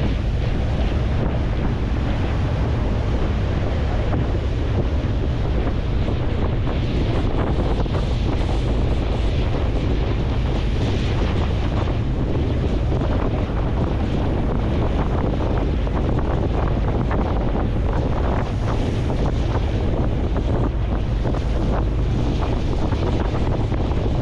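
Wind buffeting the microphone over a steady rush of water and deep noise from a ferry under way at sea.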